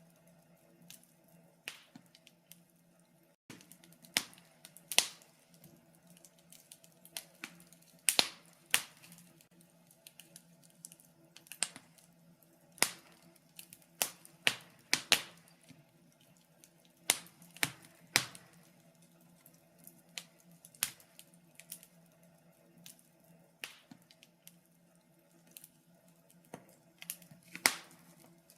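Fire in a fireplace crackling: irregular sharp pops and snaps, some much louder than others, over a faint steady hum.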